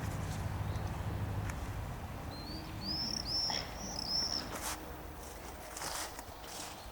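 A small bird singing a short phrase of about six high, arched chirps a couple of seconds in, over outdoor background noise with a few soft knocks or rustles after it.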